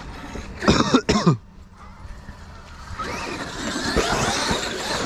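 A person's loud, short vocal outburst about a second in, like a cough, with its pitch falling at the end; from about three seconds in, a steady rushing noise.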